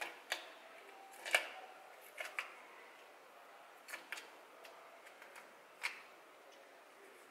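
Irregular light clicks and taps, about eight of them, the loudest about a second and a half in, as old gasket is picked off the joint face of a Lambretta TS1's aluminium engine casing.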